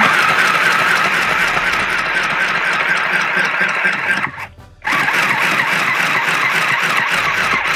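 Varmax Mini sewing machine running, its small motor driving the needle through a thick denim jeans hem. It stops briefly a little past four seconds in, runs again, and cuts off near the end.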